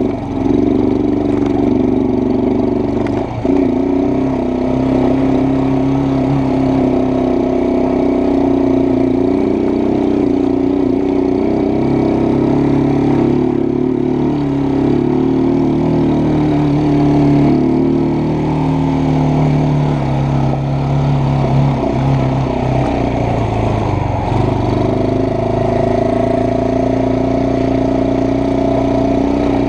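ATV engine running as the quad is ridden along a trail, its pitch drifting up and down as the speed changes.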